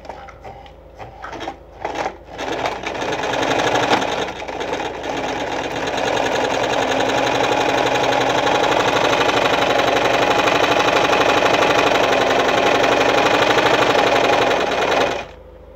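Victoria Nuzstitch ZZ-570 sewing machine, with a rear-mounted motor and a front oscillating shuttle, sewing a wide zigzag stitch. A few clicks come as the work is set, then the machine starts about two seconds in, runs faster and steadily from about six seconds, and stops shortly before the end.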